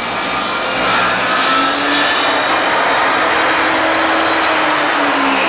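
Portable table saw running at speed, a loud steady motor whir with a low hum; the level climbs through the first second as the motor finishes spinning up.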